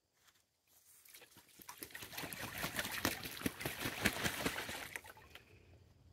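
Goose bathing in a shallow plastic wading pool, splashing and sloshing the water. The rapid splashes build about a second in, are loudest in the middle and die away near the end.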